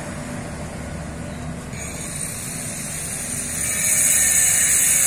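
Passenger train receding along the track with a steady low rumble. About two seconds in, a high buzzing hiss sets in, and near the end it grows louder and becomes the loudest sound.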